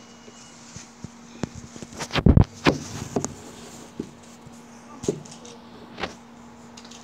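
Irregular knocks and clatters of hard objects being handled, the loudest cluster about two seconds in, then single knocks about once a second, over a steady low hum.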